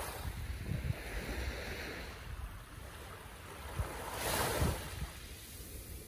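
Gentle ocean waves lapping and washing on shore, one wave surging in more loudly about four seconds in. Wind buffets the microphone with low rumbles underneath.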